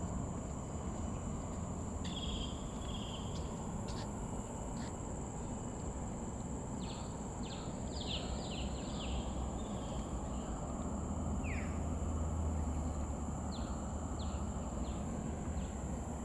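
Forest ambience: a steady high-pitched insect drone, with scattered bird chirps and short sweeping calls, a quick run of them about seven to nine seconds in, over a constant low rumble.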